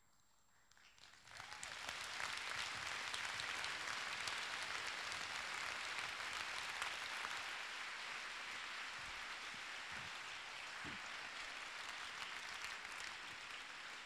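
An audience applauding: the clapping swells in about a second in and then goes on steadily.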